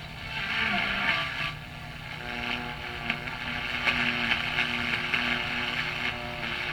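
Tube AM radio (1954 General Electric C407) hissing with static and a steady hum between stations, the noise fading and swelling back twice in the first two seconds.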